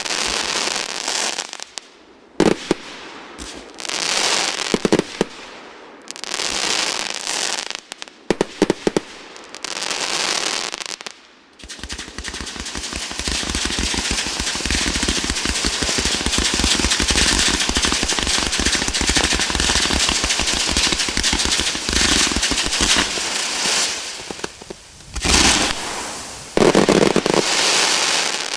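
Fireworks display. For the first ten seconds or so, separate shells burst, each followed by crackling. From about twelve seconds in, a dense, continuous barrage of rapid bangs and crackle runs, easing off a little before twenty-five seconds, with a few final loud bursts near the end.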